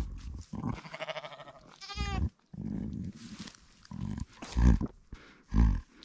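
A ewe bleating over her newborn lamb as she licks it: a couple of short calls in the first half, then two loud low puffs about a second apart near the end.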